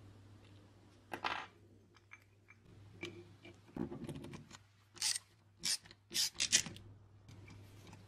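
Small metal parts of a rusty vintage car horn being handled and unscrewed with a socket: a scatter of clicks, scrapes and clinks, with a grinding rasp about four seconds in and several short, sharp metallic scrapes between five and seven seconds in, over a faint low hum.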